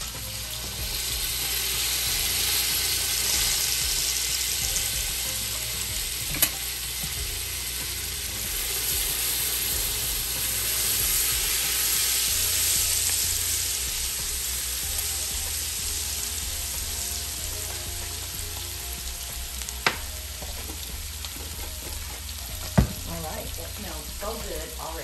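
Minced garlic sizzling in hot clarified butter in a stainless steel stockpot, stirred with a silicone spatula. The sizzle is strongest in the first half and then eases, with three sharp clicks along the way.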